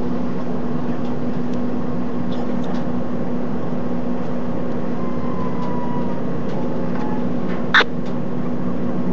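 Diesel locomotive of a freight train running, heard as a steady drone with a constant low hum. A brief sharp noise cuts through about eight seconds in.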